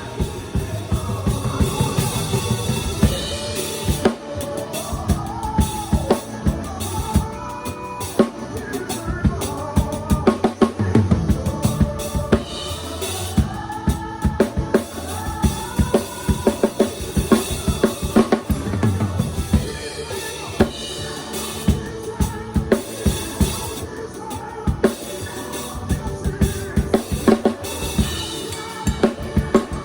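Drum kit played live: a busy, steady groove of sharp bass-drum and snare strikes, with other instruments playing pitched lines along with it.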